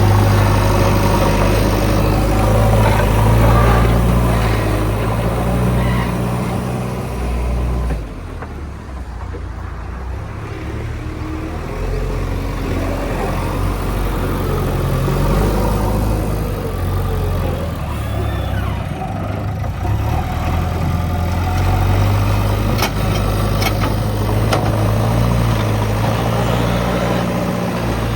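JCB 3DX backhoe loader's diesel engine running under changing load, its pitch and level rising and falling as the machine works. The level drops suddenly about a third of the way through, and a few sharp clicks come near the end.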